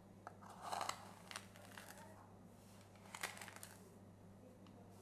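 Faint rustling and crinkling of a paper towel handled around a bowl, in a few short scattered bursts, over a steady low electrical hum.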